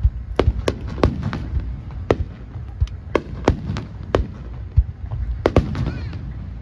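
Rapid-fire fireworks of a grand-finale starmine barrage: sharp bangs come about two a second at uneven spacing over a continuous low rumble of bursts.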